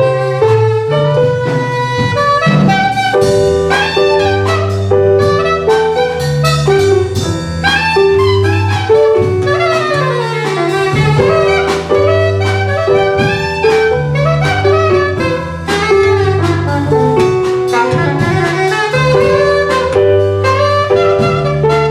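Instrumental ensemble music played live, with a held melody line over a stepping bass line and a steady beat.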